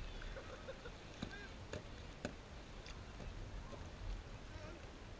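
Wind on an action-camera microphone on a kayak, with a low steady rumble, small water sounds around the hull and a few light knocks. Faint distant voices come through now and then.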